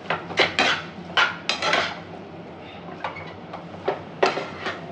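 Tongs and a spatula scraping and knocking against a frying pan as fried noodles are tossed. The strokes are irregular, with a quick cluster in the first two seconds and a few more near the end.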